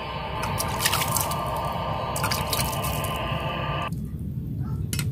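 Water trickling and dripping over a wet rock used as a sharpening stone, with a few sharp drips.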